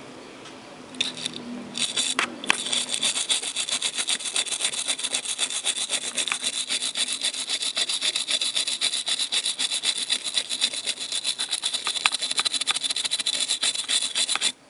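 A brush scrubbing a circuit board, rapid even back-and-forth scratchy strokes, cleaning the board after an op-amp has been soldered in. It starts about a second in and stops suddenly near the end.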